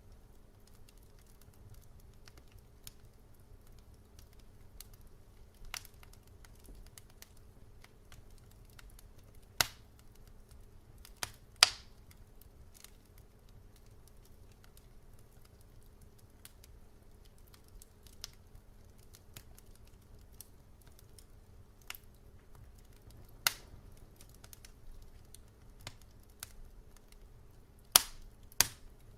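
Wood fire in a fireplace crackling: scattered sharp pops and snaps every few seconds, two or three of them much louder, over a low steady background hum.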